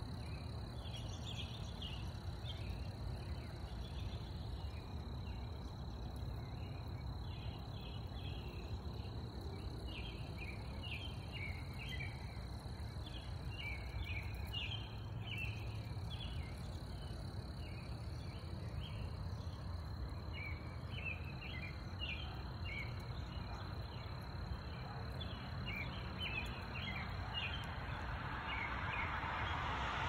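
Outdoor ambience: a steady low rumble with many short, high chirps scattered irregularly throughout, over a thin steady high tone.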